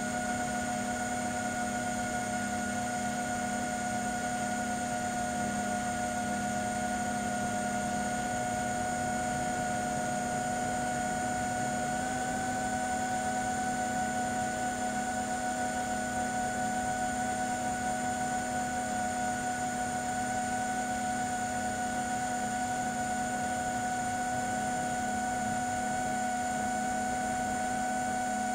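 6S FPV drone's brushless motors and propellers running steadily in flight: a continuous whine made of several held tones over a hiss, stepping up slightly in pitch about twelve seconds in.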